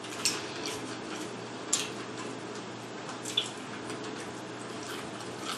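Quiet wet eating sounds of chewing and handling food, with three short sharp smacks or clicks about one and a half seconds apart.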